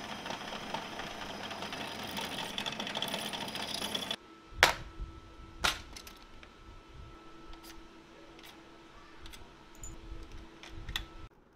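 Drill press boring a hole through a steel bar, a steady grinding whir that stops abruptly about four seconds in. Then the plastic case of a tap and die set clacks sharply twice as it is handled and opened, followed by lighter clicks of the tools and dies inside.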